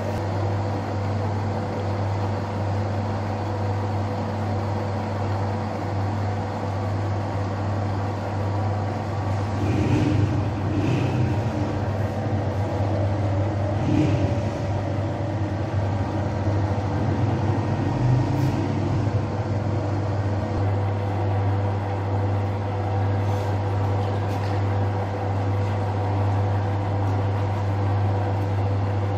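Electric bakery dough mixer running steadily with a low motor hum as its arm kneads sangak dough in the bowl. A few knocks are heard around ten to fourteen seconds in.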